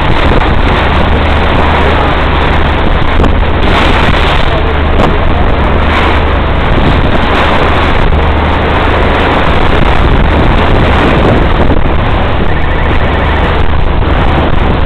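Ferry under way, its engine running as a steady low drone under loud wind noise on the microphone.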